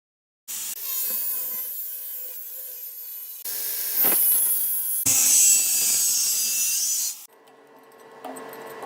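Tools cutting and scraping wood in a run of short, abruptly joined takes. The sound starts about half a second in, gets louder about four seconds in, and breaks off sharply near the end.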